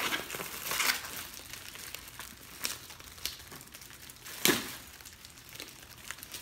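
Crinkling and rustling of a Blizzard Blanket survival blanket as gloved hands fold and tuck its crackly reflective material around a casualty's head, with a louder crackle about four and a half seconds in.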